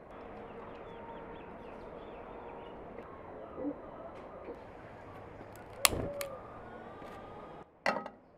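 A frying pan clanks as it is set down on a metal gas-burner grate: a sharp knock with a short ring about six seconds in, and another knock near the end. Birds chirp in the background.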